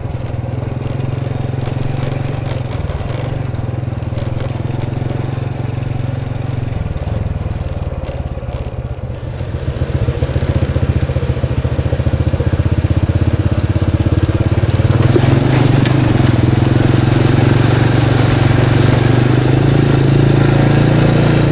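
Motorcycle engine running under load on a mountain climb. It gets louder about ten seconds in and again around fifteen seconds.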